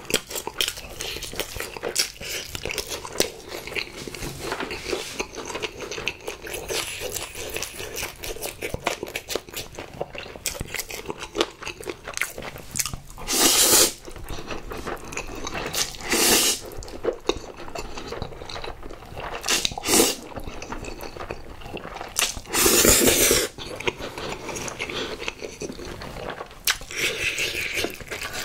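Close-miked chewing and crunching of sauced fried chicken, a steady run of small wet clicks, broken by four loud slurps of spicy stir-fried ramen noodles from about halfway through.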